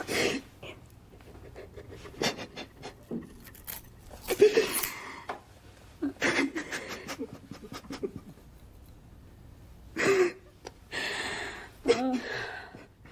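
Heavy, ragged crying breaths and gasps coming in separate bursts a few seconds apart, with a woman's short moan near the end. Faint snips of small scissors cutting hair fall between the breaths.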